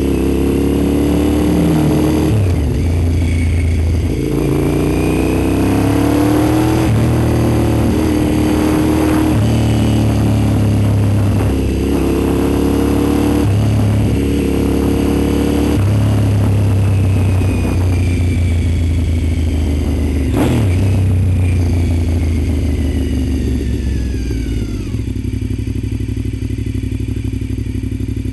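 Honda RC51's V-twin engine accelerating hard through the gears, its pitch climbing and then dropping back at each upshift, several times over. A sharp knock comes about 20 seconds in, and near the end the engine eases off and falls in pitch as the bike slows.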